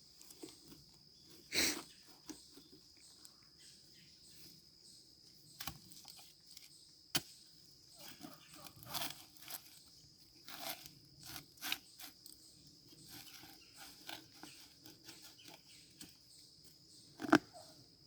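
Shovel digging a planting hole in soil: scattered crunches and scrapes of the blade cutting in, a few seconds apart, with the loudest strokes about two seconds in and near the end. A steady high insect trill runs underneath.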